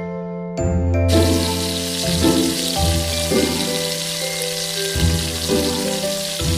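Flour-and-egg-coated peanuts deep-frying in hot oil, a steady sizzle setting in about a second in, under background music with a bass line.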